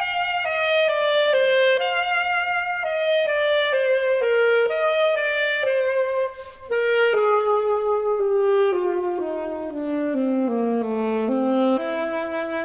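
Solo alto saxophone playing alone, a run of short separate notes that works its way downward in pitch, with a brief breath about halfway through, then settling onto a held note near the end.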